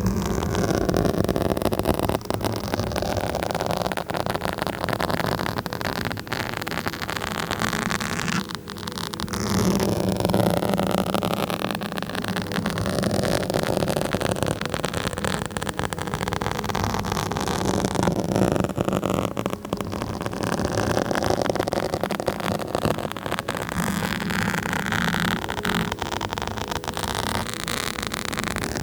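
Fingers or nails scratching directly on a microphone, a continuous dense scratchy rasp with a brief lull just before the ninth second.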